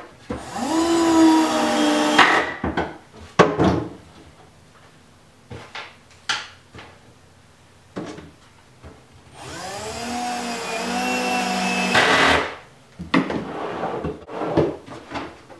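Cordless drill/driver driving screws to fix a metal drawer slide into a wooden cabinet: two runs of motor whine, each two to three seconds long and rising in pitch as it starts, with clicks and knocks of the slide and wood being handled between them.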